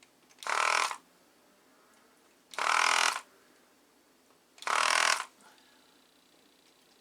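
Electric desoldering gun's vacuum pump switched on in three short bursts, each about half a second and about two seconds apart, sucking at solder on the processor socket pins. It is not picking the solder up well, because the nozzle is clogging.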